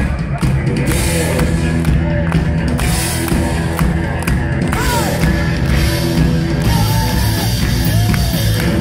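Heavy metal band playing live: a loud full mix of pounding drums and amplified instruments, with a singer's voice gliding over it.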